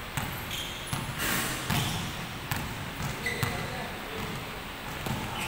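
A basketball bouncing on a hardwood gym floor, with scattered thuds and a couple of short high sneaker squeaks during a pickup game, under background voices.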